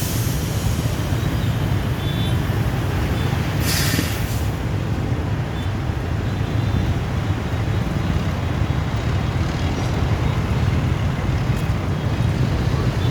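Steady low outdoor rumble, with a short sharp hiss about four seconds in.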